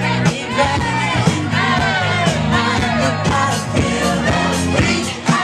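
Loud music with singing and a steady beat.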